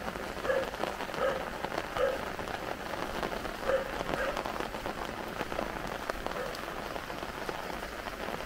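Footsteps splashing through shallow floodwater on a dirt road, regular at first and sparser after about four seconds, over a steady hiss of water.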